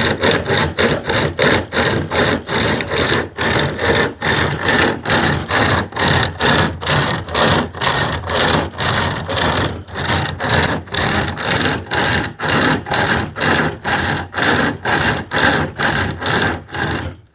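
SOG pocket chainsaw, a chain with hand straps pulled back and forth, rasping through wood in fast, even strokes that stop suddenly near the end.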